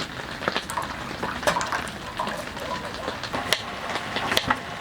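Heavy rain falling steadily, an even hiss with scattered sharp taps throughout.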